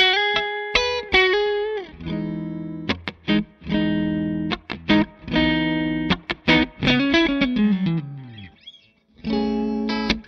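Background guitar music of picked notes and chords, with a note sliding down in pitch about seven seconds in and a short break near the end.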